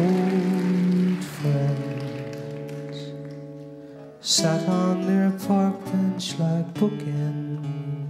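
Acoustic guitar played live: a chord rings and slowly fades, then from about four seconds in, chords are strummed about every two seconds.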